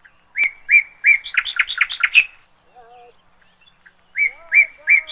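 A songbird singing loudly: a phrase of a few even notes that speed up into a quick run, about two seconds long, then the same phrase again starting near the end. Fainter low whistling notes come between the two phrases.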